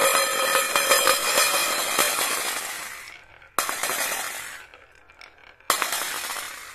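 Glass marbles clattering down a wavy wooden slope track and clinking into a stainless steel bowl of marbles. A dense rattle fades over the first three seconds, then two more sudden bursts of clatter start about three and a half and five and a half seconds in, each dying away.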